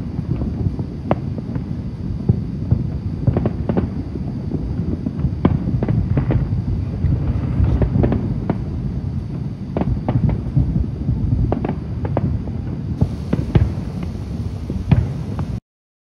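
Many distant consumer fireworks going off across the city: a steady low rumble with frequent sharp cracks and pops scattered through it. The sound cuts off suddenly near the end.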